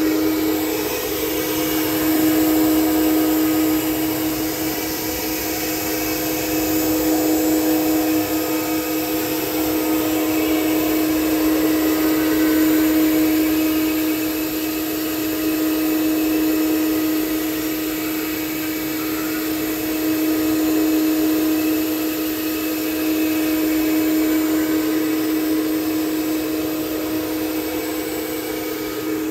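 4-axis CNC wood router spindle running steadily at a high pitch while a tapered carving bit cuts into a block of wood. The sound swells and eases in slow waves every few seconds.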